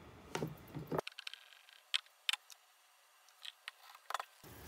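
Scattered light clicks and taps of PVC drain fittings being handled and pushed together as they are cemented.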